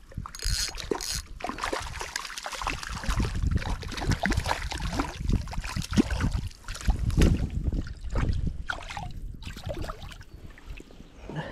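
Water splashing and sloshing at the shoreline as a hooked brown trout is drawn in and grabbed by hand, with irregular splashes.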